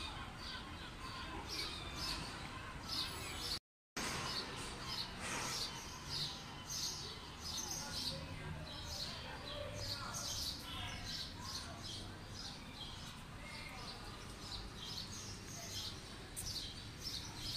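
Small birds chirping repeatedly in quick short calls over a low, steady street hum; the sound drops out completely for a moment just before four seconds in.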